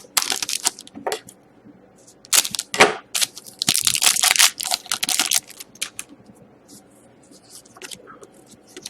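Foil wrapper of a hockey trading-card pack being torn open and crinkled in the hands, in several crackling bursts; the longest runs for about two seconds in the middle, and lighter rustles come near the end.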